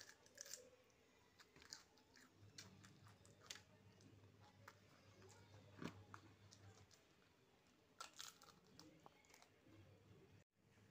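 Faint chewing of a bitten raw cucumber: a mouth crunching crisp vegetable, with scattered short crunchy clicks.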